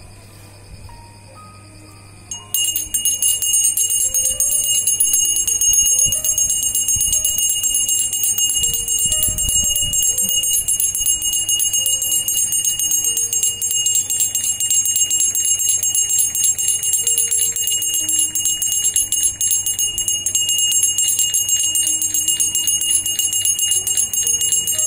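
Brass puja hand bell rung rapidly and without pause, starting about two and a half seconds in, for the aarti (deeparadhanai) lamp offering. Faint music plays underneath.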